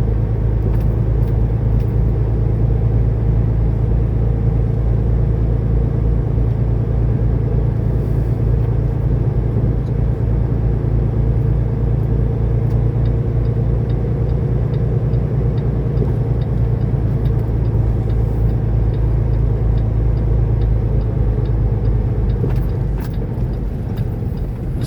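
Semi-truck diesel engine running steadily under way, a continuous low drone heard from inside the cab. Light, evenly spaced ticks come in over the second half.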